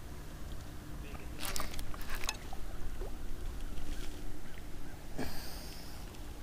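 Water and wind noise around a fishing kayak: a steady low rumble, broken by a few short sharp sounds about one and a half and two seconds in and a brief hiss about five seconds in.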